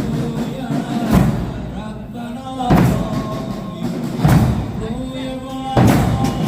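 Chain-mourning procession: a slow, even beat, a heavy thump about every second and a half, as the drum and the mourners' chains swung onto their shoulders strike together, with held chanting voices between the beats.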